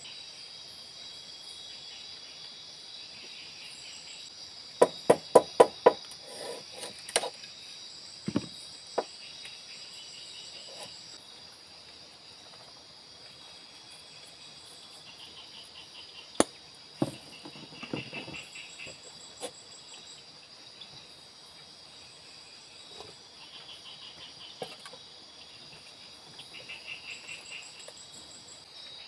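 Night insect chorus of crickets trilling steadily, with pulsed chirping trills over it. About five seconds in comes a quick run of about six sharp knocks, followed by scattered knocks and clicks as sticks are handled at a campfire.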